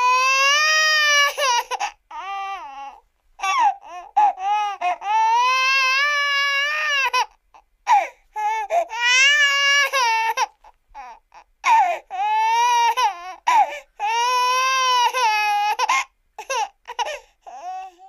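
Cartoon character crying in a high-pitched voice: long, wavering wails of a second or two each, broken by short choppy sobs, stopping just before the end.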